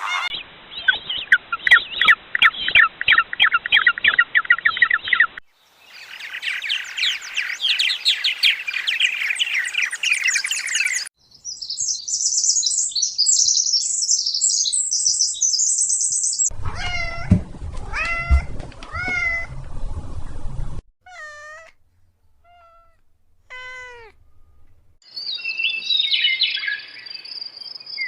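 A run of short animal clips: dense chirping of many small birds, then higher, faster bird chirping. Partway through come several repeated cat meows, each bending up and down in pitch, followed by a few scattered calls and more high bird chirping near the end.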